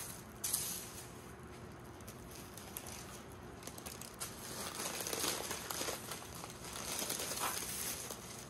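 Diamond painting canvas and its plastic cover film crinkling and rustling as it is rolled up and handled, with one sharp click about half a second in.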